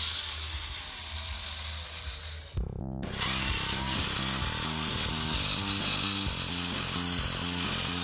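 Small electric gear motor of a remote-control model tractor whirring steadily as it drives. Background music with a steady beat joins it about three seconds in.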